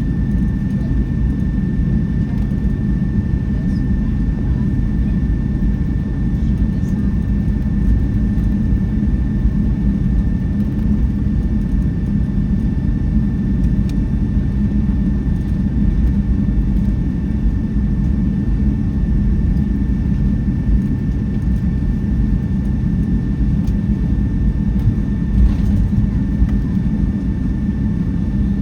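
Cabin noise inside a Boeing 757-200 with its engines running: a steady low rumble with a thin, steady high whine over it.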